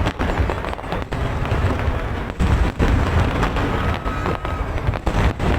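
Fireworks display: a dense, continuous barrage of booming shell bursts and sharp bangs, with a faint whistle in the middle.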